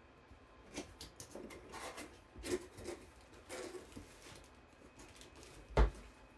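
Handling noises: scattered rustles and light clicks for a few seconds, then a single heavy thump near the end.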